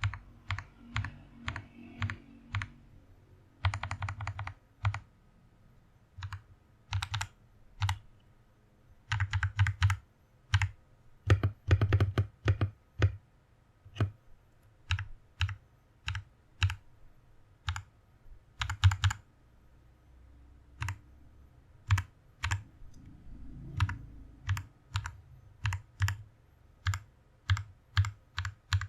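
Typing on an Orbiter67 barebones mechanical keyboard: sharp keystroke clicks, each with a low thud. They come in irregular bursts, with quick runs of rapid presses between single, spaced-out strokes.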